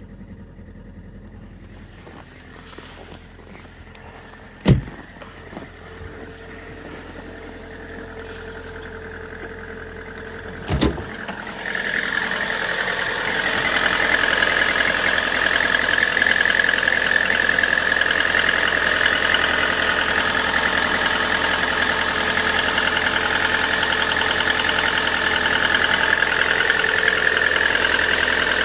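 Lada Vesta NG 8-valve engine running with the knock the owner is recording. Two sharp thumps come about 5 and 11 seconds in, and from about 12 seconds on the engine is much louder and steady.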